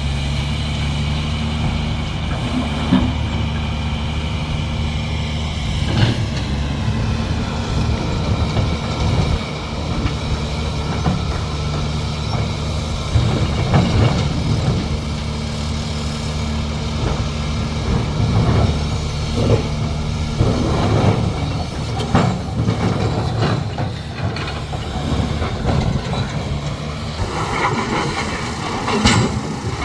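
Large excavator's diesel engine running steadily under load, with irregular metallic clanks, knocks and crunching of rock and earth being worked.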